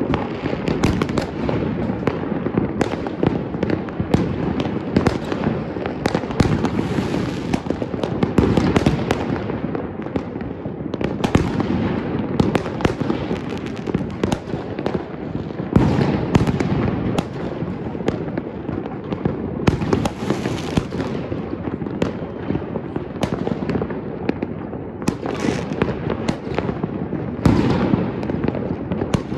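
Fireworks and firecrackers going off all over a city at once, a dense, unbroken rattle of bangs and crackles with louder single bangs now and then.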